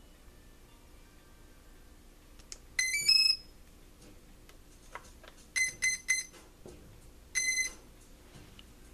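Flying 3D X8 drone powering up on its battery: a quick rising run of electronic beep tones, then three short beeps and, a moment later, a single beep. This is its power-up signal.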